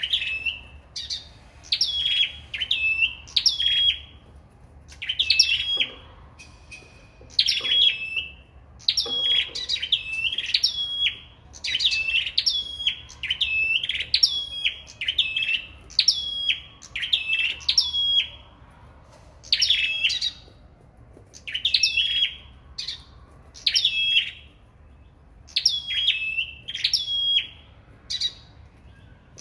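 Caged small songbirds of the kind Vietnamese keepers call sâu đầu đỏ, singing against each other in a contest. It is a steady stream of short, high chirps, each a quick hooked note, coming several a second in bouts with brief pauses.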